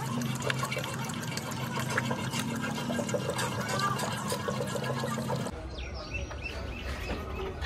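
Hydraulic oil poured in a steady stream from a metal jerry can into a funnel, filling a truck's hydraulic jack, with a steady hum underneath. About five and a half seconds in it gives way abruptly to a low rumble.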